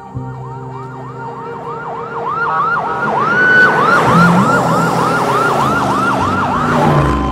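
Emergency vehicle siren in a fast yelp, its rising wail repeating about three times a second. It grows louder to a peak about four seconds in, together with the rush of a passing vehicle, and cuts off just before the end.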